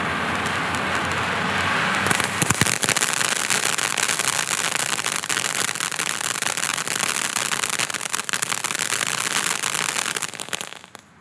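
Black Cat M1 Abrams firework fountain spraying sparks with a steady hiss. About two seconds in it breaks into dense crackling that carries on until it dies away near the end.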